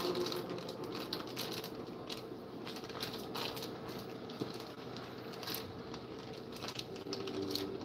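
Plastic packaging peeled off a pack of raw ground beef, crinkling in short, irregular rustles.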